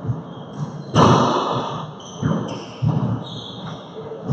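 A rubber handball struck by gloved hands and rebounding off the walls and floor of an enclosed four-wall court. Each hit is a sharp smack followed by an echo, and the loudest comes about a second in. Sneakers squeak on the hardwood floor between the hits.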